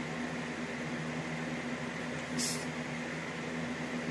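A steady low hum with faint hiss, and about two and a half seconds in a brief high swish as a side kick is thrown.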